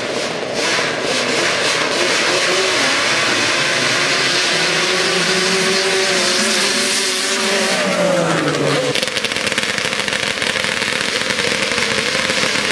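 Racing ATV engines at full throttle on a dirt drag strip, held at high revs for several seconds, then falling in pitch about eight seconds in.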